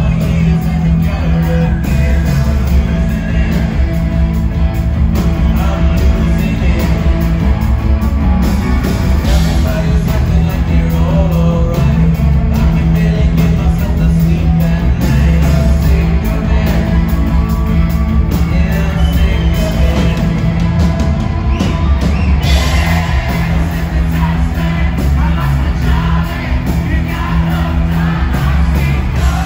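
A rock band playing live, with electric guitars, bass and drums under a lead singer singing and shouting into the microphone. Loud, with heavy bass throughout.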